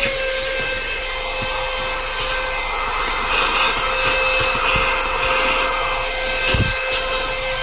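Xiaomi Youpin Coclean cordless handheld car vacuum running with a steady high-pitched motor whine and rushing airflow. Its nozzle rubs and rattles over the plastic of a car cup holder as it sucks up fine dust.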